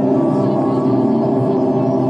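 Experimental noise music played live: a loud, steady, dense drone of many held tones stacked in the low and middle range, with faint gliding tones above it.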